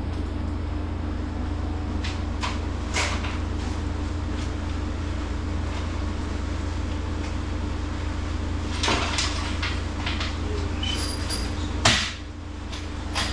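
Steady low hum of a walk-in cooler, with scattered knocks and clunks as frame parts are handled and set in place; the sharpest knock comes near the end.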